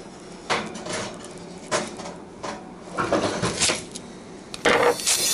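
Kitchen knife cutting through a whole onion and knocking down on a plastic cutting board: a series of sharp cuts about a second apart, the loudest near the end.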